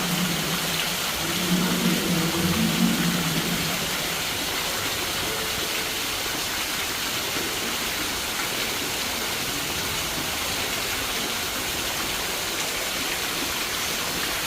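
Steady rain falling, a dense even hiss. A low hum fades out about three and a half seconds in.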